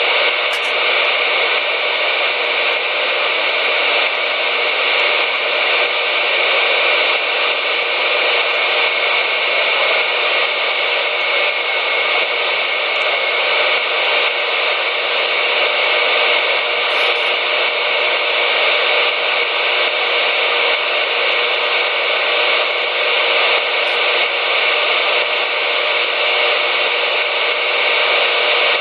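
Steady hiss of static from a CB radio's speaker, with no station coming through, and a few faint ticks in it.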